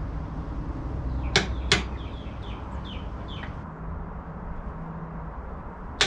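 Click-type torque wrench clicking twice in quick succession about a second and a half in, as a docking-hardware bolt reaches the set 25 foot-pounds, with another sharp click near the end. A bird chirps a few times between them, over a low steady rumble.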